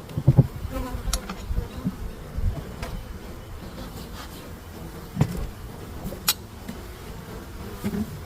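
Honeybees buzzing steadily around a hive, with scattered sharp knocks and clicks from hive parts being handled. The loudest knocks come just after the start and about five seconds in.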